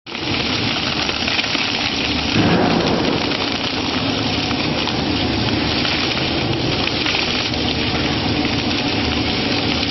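Industrial shaft shredder's toothed rollers crushing and tearing slabs of stiff material: a continuous, dense crunching and crackling, a little louder about two and a half seconds in.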